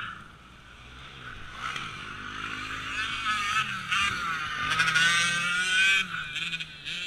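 Motocross bike engines revving, growing louder to a peak about five to six seconds in, then dropping off.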